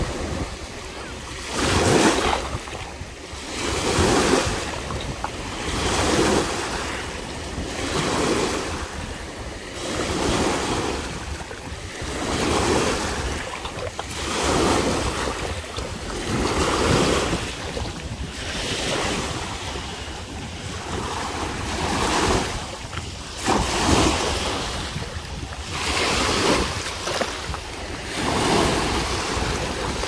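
Small surf waves breaking and washing up over a shallow sandy shore, swelling and fading about every two seconds, with wind buffeting the microphone as a low rumble underneath.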